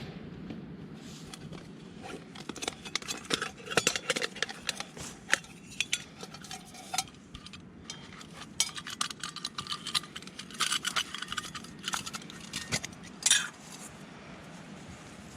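Camping cookware being handled to make a brew: metal pots, mug and stove parts clinking and clattering in irregular knocks, with one louder short scrape about thirteen seconds in.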